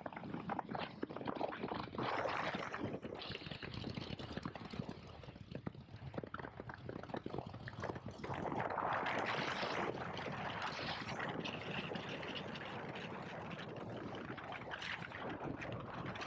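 Wind rushing and buffeting over the microphone of a moving motorcycle, with engine and road noise underneath; it grows louder about halfway through.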